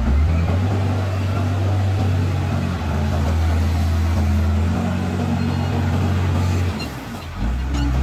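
Wheel loader's diesel engine running steadily as the machine drives back to the soil pile and into it, with a brief dip in level about seven seconds in.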